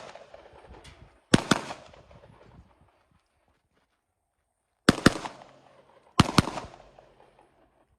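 Pistol shots in quick pairs: two about a second and a half in, two near five seconds, and two more a second later, each with a short echoing tail.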